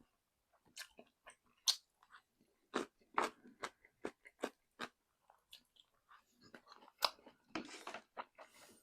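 Close-miked crunching and chewing of crispy fried chicken: irregular sharp crunches, several a second at times, with a few longer, softer chewing smears near the end.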